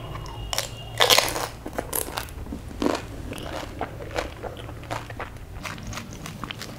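A whole pani puri, filled with spiced water, crunching as it is bitten in the mouth: its crisp fried shell cracks loudest about a second in. Then comes crackly, wet chewing with the mouth full.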